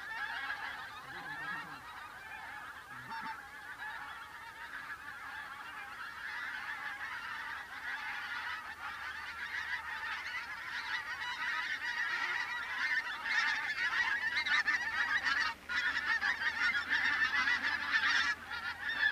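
A large flock of wild geese calling in flight: a constant chatter of many overlapping high honks, growing louder over the second half as the birds come in close.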